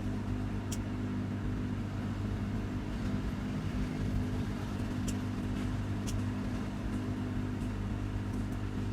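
Steady hum of a small electric fan motor, with a few faint ticks.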